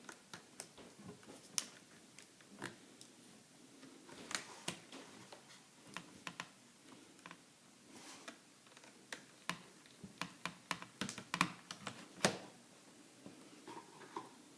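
Irregular light clicks and taps from a small screwdriver and tiny screws being worked into a laptop screen's mounting bracket, with a thicker, louder run of clicks about ten to twelve seconds in.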